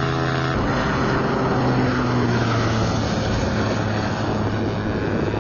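Aircraft engine running with a steady drone: a clean low hum that turns rougher and noisier about half a second in.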